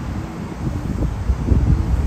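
Wind buffeting the microphone over the low rumble of Class 66 diesel locomotive 66009 approaching with its freight train, its two-stroke EMD V12 engine growing louder.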